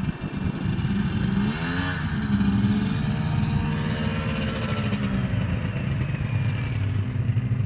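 Snowmobile engine running, its pitch rising and then falling back about two seconds in, then running on steadily.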